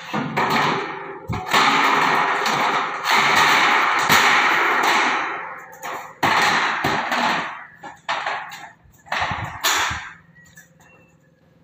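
Loose corrugated galvanized steel deck sheets clattering and scraping as workers walk on them and shift them into place, with knocks. Long stretches of noise in the first half give way to shorter bursts, and it quietens near the end.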